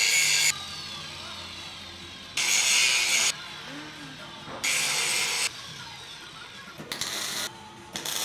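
Welding arc crackling on steel in short runs of about a second each, five times, with pauses between the welds.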